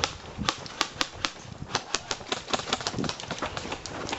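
Airsoft guns firing in irregular single shots and quick strings: sharp snapping clicks, a few at first and then several a second from about two seconds in.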